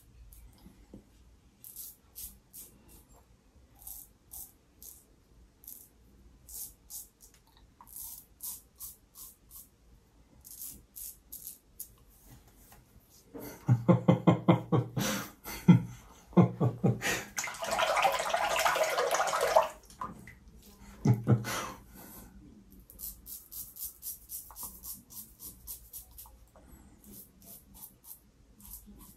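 Safety razor with a closed-comb head and Astra Stainless blade scraping through stubble in runs of short, quick strokes. About halfway through, water runs and splashes for several seconds, the razor being rinsed, before the short strokes resume.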